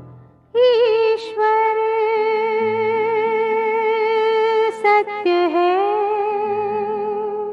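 Music: one long held melodic note with vibrato, most likely sung, over low sustained accompaniment. It starts about half a second in, then dips and swoops back up in pitch a little past the middle.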